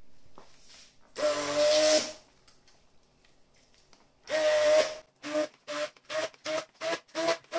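Electric stick blender whirring in a glass bowl of thick cream cheese and icing sugar, in two short bursts and then switched on and off in quick pulses, about two and a half a second.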